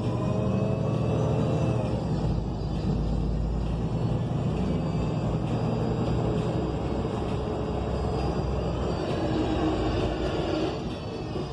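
Transit bus heard from inside the cabin while under way: the Cummins Westport L9N natural-gas engine gives a steady low rumble, and a whine from the Voith D864.6 automatic transmission glides up and down in pitch as the bus speeds up and slows. The level drops a little near the end.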